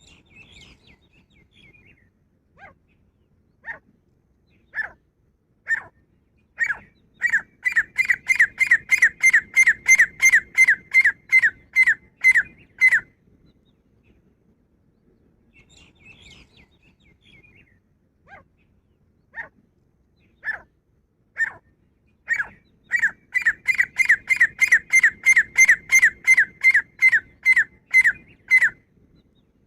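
Grey francolin calling: two loud bouts, each starting with a few spaced notes that speed up into a rapid run of ringing repeated notes, about three to four a second, with soft chatter between the bouts.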